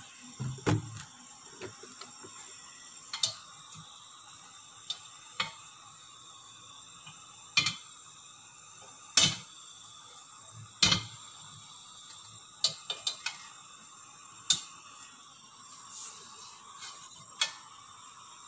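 Stainless steel wok on the stove with olive oil heating in it: a dozen or so scattered sharp clicks and taps over a steady faint hum, the loudest a quick double tap near the end.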